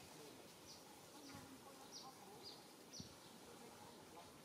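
Near silence, with faint short high chirps repeating about twice a second, each dropping slightly in pitch.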